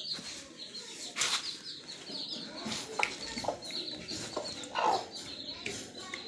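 Day-old Thai aseel chicks peeping constantly in quick, high, falling chirps, with a mother hen's louder clucks now and then.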